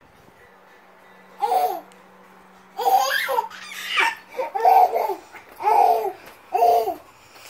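A baby laughing and babbling in about six short, high-pitched bursts, the first about a second and a half in.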